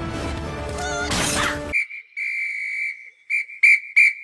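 A loud, high whistle through the fingers: after about a second and a half of cartoon music and effects, one long note, then several short blasts near the end.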